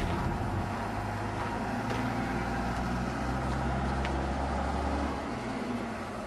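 A motor vehicle's engine idling with a steady low hum, which drops away about five seconds in.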